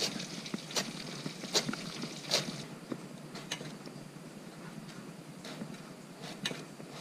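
Kitchen knife chopping lettuce and then slicing radishes on a plastic cutting board: sharp, irregular knocks of the blade against the board, coming more often in the first half and more sparsely later.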